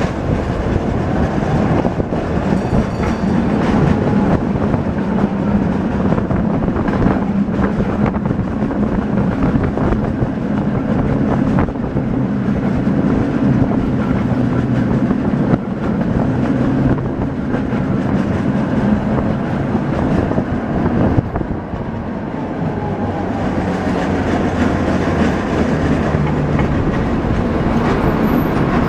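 Tram running on its rails, heard from inside the car: a steady rumble with a low hum and scattered clacks from the wheels.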